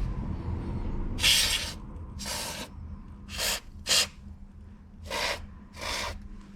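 WD-40 aerosol can sprayed in six short hissing bursts, roughly one a second.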